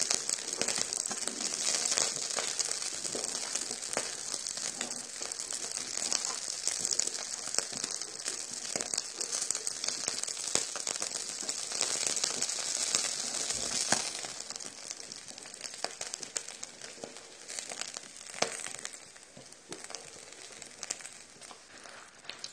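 Pieces of wild boar meat sizzling in fat on a round grill pan, a steady hiss with scattered crackles. The sizzle fades about fourteen seconds in.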